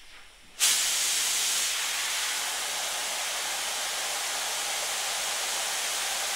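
DeVilbiss SRi Pro touch-up spray gun triggered and spraying water, a loud steady hiss of compressed air and atomised mist. It starts about half a second in and cuts off sharply near the end.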